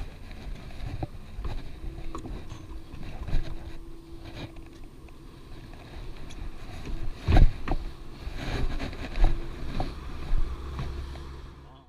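Sounds aboard a small fishing boat: a steady low rumble of water and motion, with a faint steady hum from about two to nine seconds in. Scattered knocks sound over it, the loudest about seven and a half seconds in.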